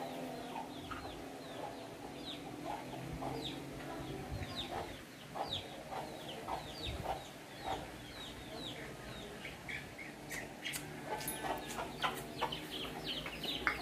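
Birds calling: a steady run of short, falling chirps, about two a second, with lower clucking notes mixed in.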